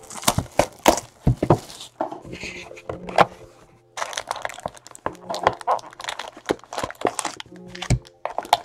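Hands opening a trading-card box and pulling packs out: crackling wrapper and cardboard, with a quick run of sharp clicks and taps.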